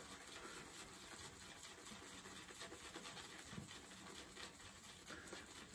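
Near silence: faint room tone with only light, soft rustling.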